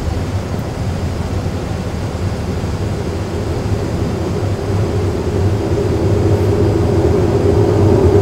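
Simulated Airbus A320 cockpit noise from a full flight simulator's sound system: a steady rumble of airflow and engine, with a low hum that grows louder from about five seconds in as the landing gear extends.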